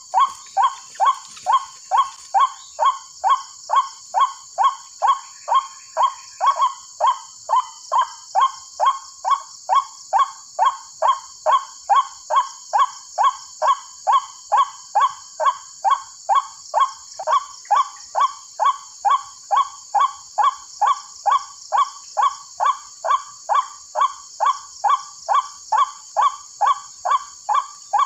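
Recorded white-breasted waterhen (ruak-ruak) call played on a loop through a loudspeaker lure: a falling 'kruak' repeated evenly about twice a second, used to call waterhens into the snares.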